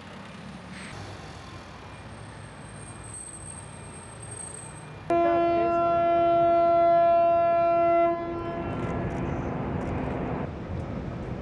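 Cargo ship's horn sounding one long blast of about three seconds, starting suddenly about five seconds in: the departing ship's farewell signal as it leaves the quay.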